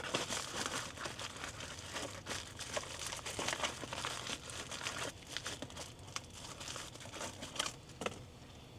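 Plastic packaging crinkling as a new engine part is unwrapped: dense irregular crackling that thins out over the last few seconds, with a couple of sharper ticks near the end.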